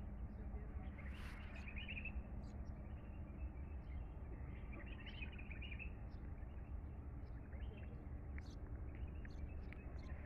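Birds chirping and twittering faintly now and then, over a steady low background rumble.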